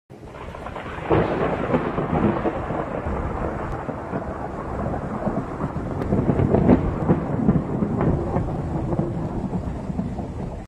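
Long rolling thunder rumbling without a break, swelling sharply about a second in and again around six to seven seconds.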